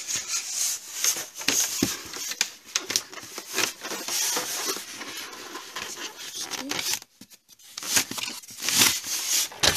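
Plastic BB rifle being handled and pulled against its white moulded packaging insert: irregular scraping, rustling and clicking of plastic on packaging, with a short pause about seven seconds in before more scrapes near the end.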